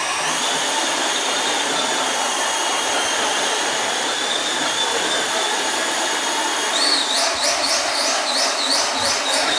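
Electric motors of Traxxas X-Maxx RC monster trucks whining steadily. From about seven seconds in, a fast repeating high chirp joins in.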